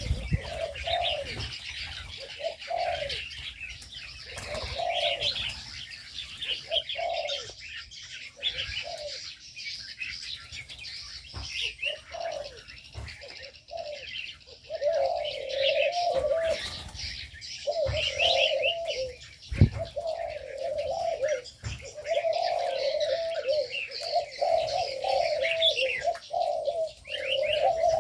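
Spotted doves cooing over and over, the coos coming almost without pause in the second half, over constant high chirping of small birds in an aviary.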